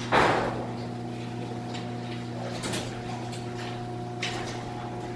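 Chain-drive garage door opener running the door along its freshly lubricated track and newly tensioned chain: a steady motor hum, with a louder clatter just after the start and a few lighter clicks.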